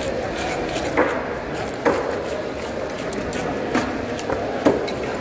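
Knife chopping into a large fish on a wooden chopping block: a handful of sharp knocks, roughly a second apart, over steady background noise.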